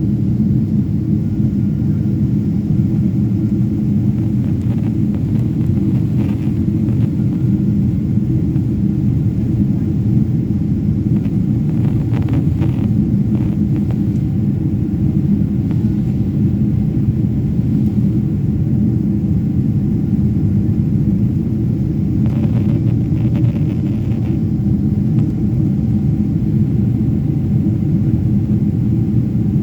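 Steady low rumble of an airliner's jet engines and airflow heard from inside the passenger cabin, holding at an even level throughout.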